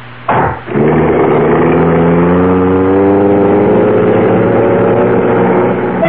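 Radio-drama sound effect of a car engine: a short burst as it starts, then the engine running and accelerating away, its pitch rising steadily for about five seconds.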